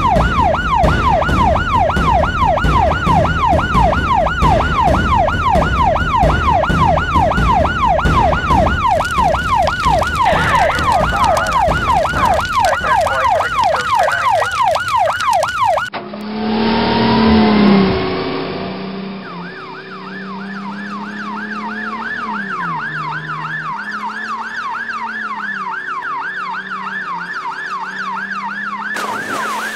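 Cartoon siren effects for a police car and a fire truck. A fast yelping siren sweeps up and down two or three times a second over a low engine rumble and cuts off about halfway through. After a brief falling sweep, a second yelping siren starts over a low wavering tone.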